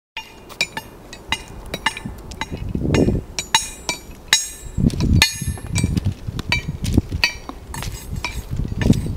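Footsteps on railway track ballast: loose stones crunching and clinking sharply with each step.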